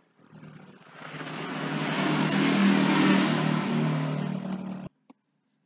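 A motor vehicle's engine running with a low steady hum, growing louder over about two seconds and then cutting off abruptly near the end.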